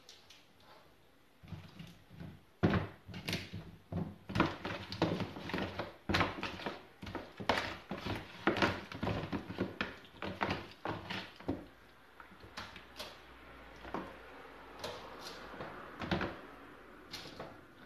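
Irregular knocks, taps and wet handling noises as raw chicken pieces are lifted from a plastic tub and laid in a metal baking tray.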